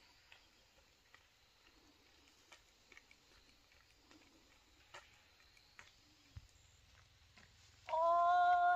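Quiet open-air background with a few faint light ticks, then about eight seconds in a loud, drawn-out voice call starts, held on one pitch.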